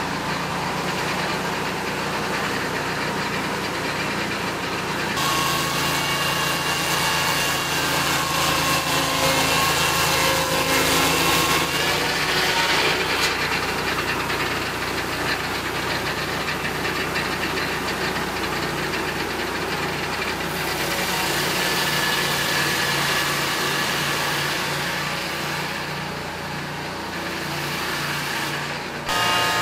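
Peterson Automated Swingblade Mill running, its engine working steadily while the 10-inch circular swingblade cuts through a log. The sawing grows louder and brighter for several seconds after about five seconds in, with abrupt changes in the sound.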